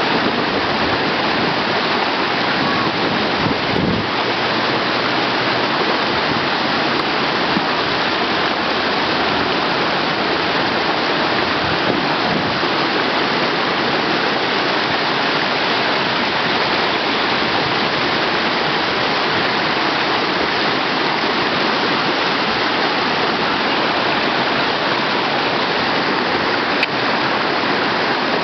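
Steady, even rush of whitewater: the Cedar River, running at about 1100 cfs, pouring through a foaming standing wave.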